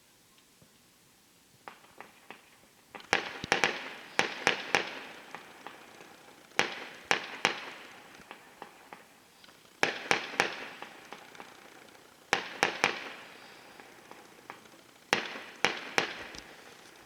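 Fireworks going off in five bursts of rapid sharp cracks, one about every three seconds, each crack trailing off in a short echo.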